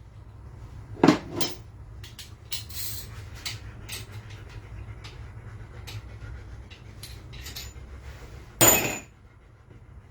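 Metal engine parts from a 4.8/5.3 V8 teardown clinking and knocking as they are handled, with two louder clanks, one about a second in and one near the end, and light clicks in between.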